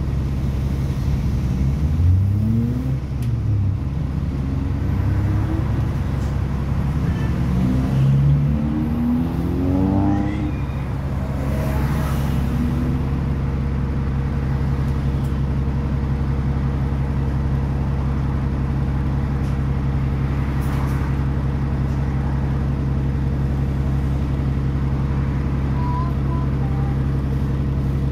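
Diesel bus engine heard from inside the saloon: its pitch rises repeatedly over the first ten seconds or so as it pulls away, then it runs at a steady, even drone.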